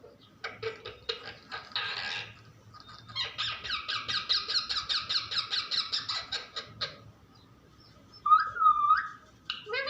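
Pet parrot chattering: a quick run of rapid notes about a second in, then a longer fast, even chatter from about three to seven seconds in, and a couple of short calls that bend up and down in pitch near the end.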